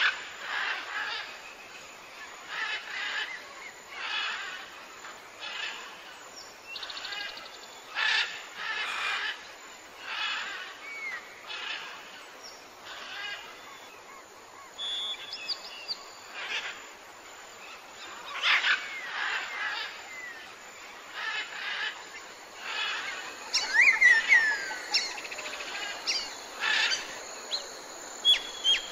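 Wild birds singing: a short chirping phrase repeats about once a second, and about two-thirds of the way through a bird gives louder falling whistles.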